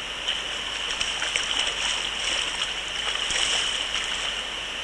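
Shallow stream water running steadily, with small splashes as a hooked brown trout thrashes in the shallows.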